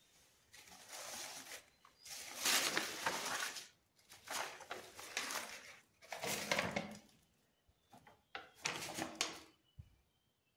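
Scuffing and crunching footsteps on a concrete floor littered with rubble and loose paper. They come in about six noisy bursts of a second or so each, with short pauses between, and stop near the end.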